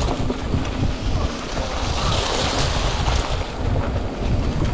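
Wind buffeting the microphone of a rider moving along an off-road trail, a loud rumble mixed with tyre noise. About two seconds in, a hiss swells and fades.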